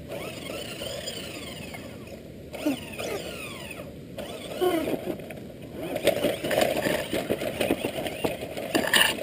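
Tamiya Midnight Pumpkin RC monster truck's electric motor and gears whining, rising and falling in pitch with the throttle. In the second half its tyres clatter and crunch over loose rocks, with a run of sharp knocks that is loudest near the end.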